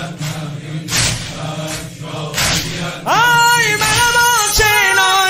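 Crowd of mourners chanting a noha refrain, with rhythmic chest-beating strokes about every second and a half. About three seconds in, the male eulogist's amplified solo voice comes in loud on a long rising then held note, opening the next verse.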